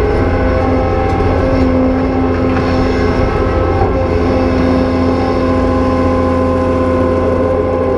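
Cat 390F excavator's diesel engine running hard under load, with a steady whine from its hydraulic pumps.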